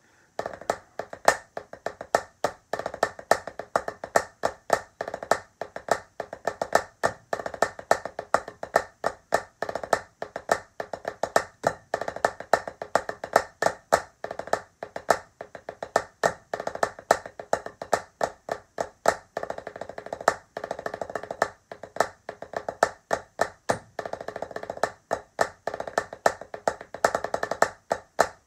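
Wooden drumsticks playing a syncopated rudimental rhythm on a drum practice pad: a fast, unbroken stream of dry, sharp strokes with uneven accents, starting right at the outset.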